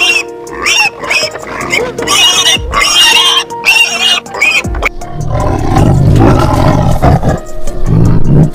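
Pigs squealing in short, high calls, then from about five seconds in a tiger's low, rough growling roar, over background music.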